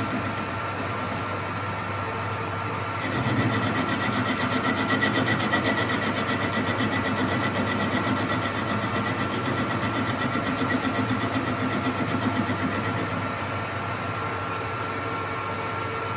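Metal lathe running steadily under power, with a constant machine hum and whine. It gets louder about three seconds in as the work picks up, and stops abruptly at the end.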